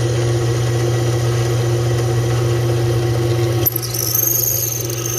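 Bench drill press running steadily with its bit boring a 1/4-inch hole through quarter-inch stainless steel bar. About three and a half seconds in, the tone changes and a high-pitched squeal of the bit cutting the steel sets in.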